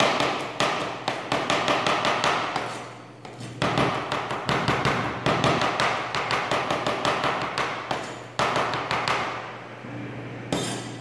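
Kitchen knife rapidly mincing pressed garlic cloves on a plastic cutting board: quick, even chops, about five or six a second, in runs broken by short pauses.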